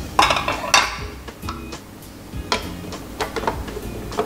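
Upbeat background music, with a few sharp plastic clicks and knocks, the loudest in the first second, as a KitchenAid stand mixer's clear pouring shield is fitted onto the steel mixing bowl.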